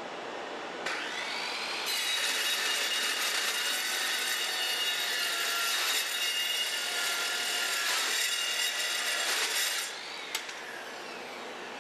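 Circular saw with a Metal Devil steel-cutting blade spinning up about a second in, then cutting through several bars of rebar for about eight seconds. The cut is a dense, steady metal-cutting noise with high ringing tones. Near the end the cut finishes, the sound drops and a single click follows.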